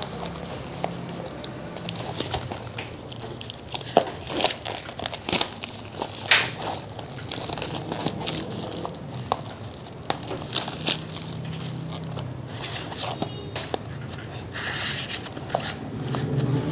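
Cardboard box and plastic packaging being handled: irregular crinkling and crackling with a few sharper snaps.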